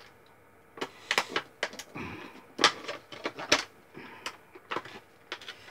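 Stiff plastic blister packaging crackling and clicking as a toy sonic screwdriver is pulled and wrestled out of its tight box insert, in irregular sharp snaps.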